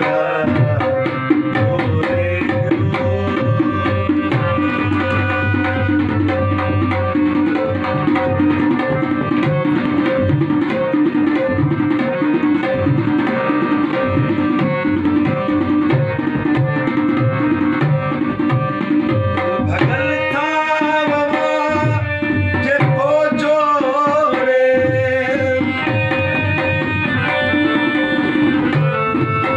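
Harmonium playing a melody over held notes, with a dholak drum keeping a steady hand-played rhythm. From about 20 to 25 seconds in, a man's singing voice is heard over the instruments.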